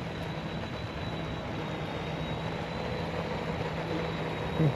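Battery-powered radio-controlled racing boat running on the lake: a steady high electric-motor whine over a broad hiss.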